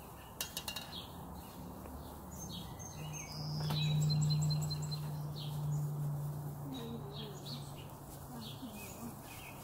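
Small birds chirping, short high calls scattered throughout, over a low steady hum that swells about three seconds in and fades out near the end.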